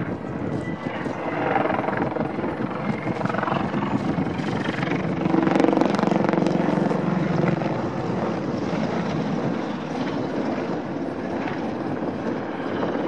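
Mil Mi-24 Hind attack helicopter, with twin turboshaft engines and a five-blade main rotor, flying past in a display. The engine and rotor noise grows to its loudest about halfway through as it passes closest, then eases off a little.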